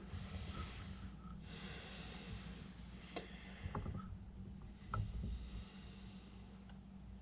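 Faint breathing through the nose close to the microphone, two soft breaths in the first couple of seconds, with a few small clicks of handling later on over a steady low hum.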